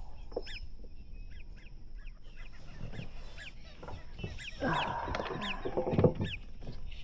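Birds calling: a steady series of short, high, falling chirps, with a louder, lower-pitched sound from about four and a half to six seconds in.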